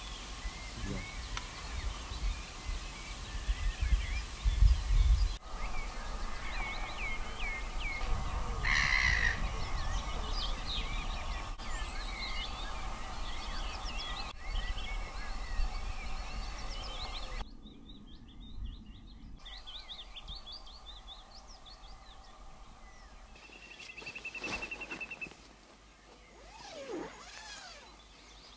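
Wild birds chirping and singing, many short calls scattered throughout, with a few higher repeated calls later on. Wind rumbles on the microphone in the first half, strongest about four to five seconds in.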